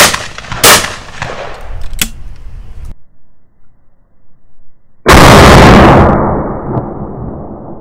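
Two shots from a Blaser F16 Sport 12-bore over-and-under shotgun about 0.7 seconds apart, followed by a smaller crack about two seconds in. After a short silence, a slowed-down shotgun blast from slow-motion footage: a long, drawn-out boom that fades over a couple of seconds.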